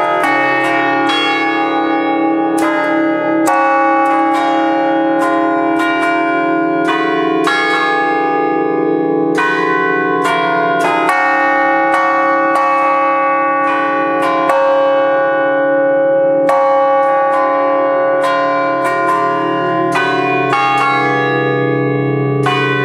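Five bronze church bells cast by Fratelli Ottolina in 1932, a set tuned in D-flat, ringing a festive concerto heard close up in the belfry. A steady run of strikes follows one after another, each note ringing on under the next so the tones pile into a continuous hum.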